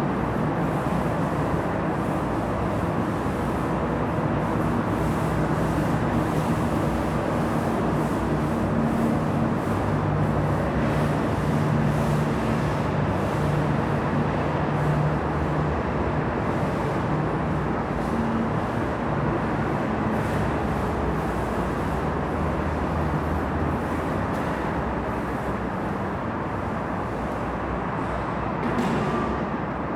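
Paint-spraying equipment running steadily as a door is sprayed, a continuous mechanical drone with a faint hum.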